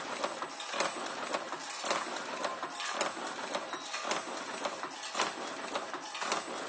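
Automatic wire-forming machine running in production at about 60 parts a minute. It makes a steady clatter of sharp metallic clicks and knocks, several a second, with louder strikes about once a second.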